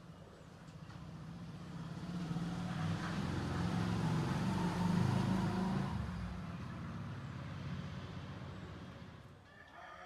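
A motor vehicle passing nearby: engine hum and road noise swell to a peak about halfway through, then fade away.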